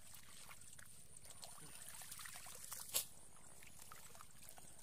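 Hands squelching and groping in wet mud and shallow muddy water, with faint small splashes and drips, and one sharp click about three seconds in.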